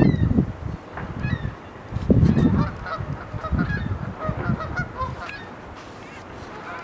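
Geese honking: a scatter of short calls, busiest in the middle. Low gusts of wind buffet the microphone, loudest at the start and again about two seconds in.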